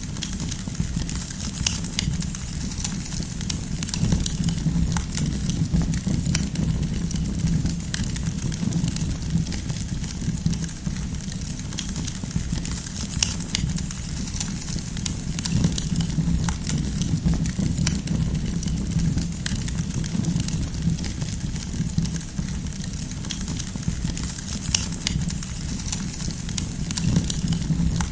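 Wood campfire burning steadily, with a low rumble of flames and scattered sharp crackles and pops from the burning firewood.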